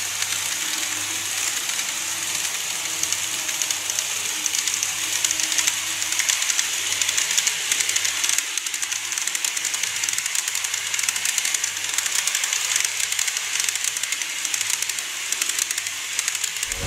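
N-gauge model electric commuter train running on viaduct track: a steady high hiss with a fine, rapid rattle of the wheels on the rails and a faint motor hum.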